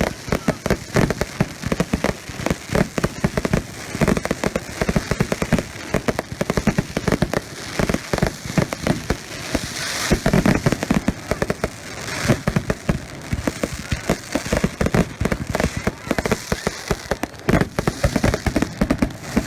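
Fireworks going off in a dense, rapid barrage of bangs and crackles, many reports a second.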